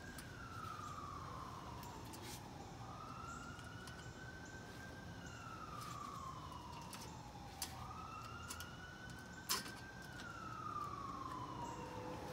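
An emergency-vehicle siren wailing, its pitch slowly climbing and falling in cycles of about five seconds. Two sharp metallic clicks, from pliers bending a cotter pin, come in the second half.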